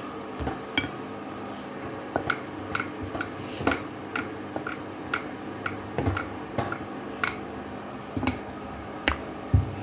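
Wooden rolling pin rolling out paratha dough on a stone rolling board, clicking lightly against the stone about once or twice a second, irregularly.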